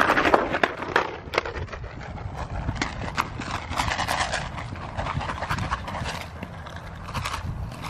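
Hoofbeats of an Arabian Warmblood mare trotting on soft dirt and grass: an uneven run of dull thuds.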